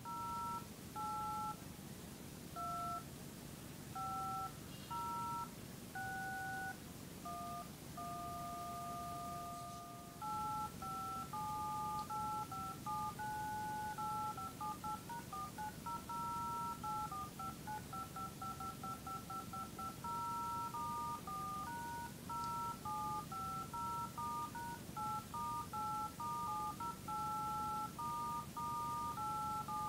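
Touch-tone keypad beeps from a mobile phone as a home phone number is keyed in: a long string of two-note presses, mostly short, some held for a second or two, with a quick run of presses near the middle.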